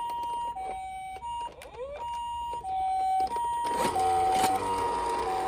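A toy ambulance's electronic Japanese hi-lo "pee-po" siren, two tones taking turns about every two thirds of a second. A louder rushing noise joins about three and a half seconds in.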